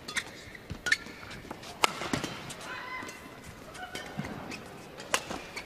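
Badminton rally: several sharp cracks of rackets striking the shuttlecock, a second or more apart, with short squeaks of court shoes and footfalls between the shots, in a large hall.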